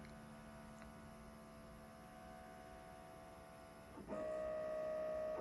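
Stepper motors of a Zenbot CNC router, run by Geckodrive drivers, whining as the machine homes its axes. The whine is a faint steady hum at first and turns into a louder, higher whine about four seconds in.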